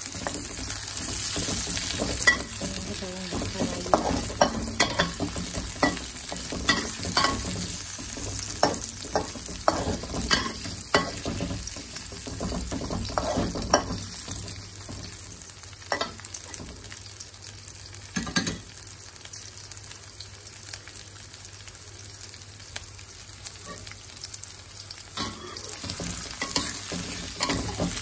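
Sliced onion, garlic, ginger and chilli sizzling in hot oil in a wok, stirred with a metal spatula that scrapes and clinks against the pan. The clinks come thick in the first half, thin out for a while, then pick up again near the end.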